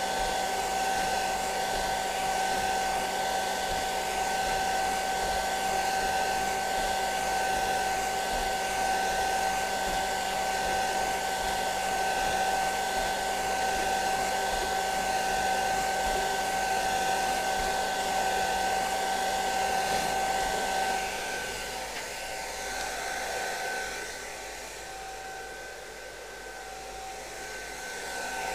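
Hand-held hair dryer blowing steadily with a constant whine, aimed at prints coming out of an inkjet printer to dry the ink on tracing paper. It gets quieter about three-quarters of the way through, dips further, then comes back up at the very end.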